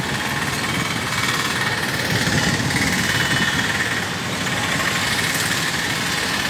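Road traffic: motor vehicle engines running steadily, with a knocking, clattering engine note in the mix.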